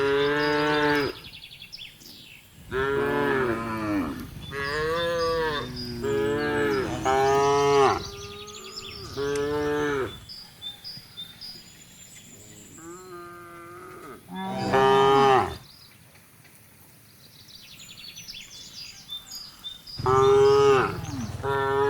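Cattle mooing repeatedly: about eight long, loud moos, most of them in quick succession through the first half, then two more spaced out later on, one of them near the end.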